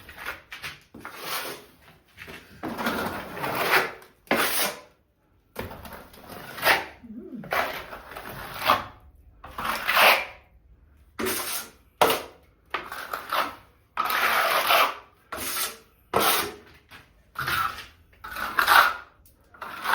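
A plastering tool scraping wet plaster along a wall, about a stroke a second, each a rasping swipe. The plaster is being spread to band and level the wall.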